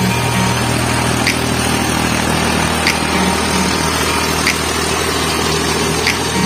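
Mahindra 40 hp tractor's diesel engine running steadily under load as it drives a rotavator through flooded paddy mud, with a short high tick about every second and a half.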